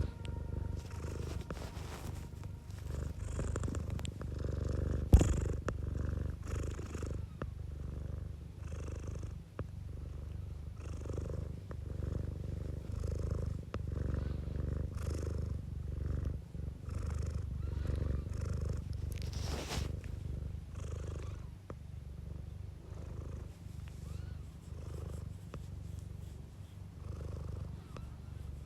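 A domestic cat purring close up: a steady low rumble that swells and eases about once a second as the cat breathes in and out. A single sharp click about five seconds in, and a short soft rustle near the end of the second third.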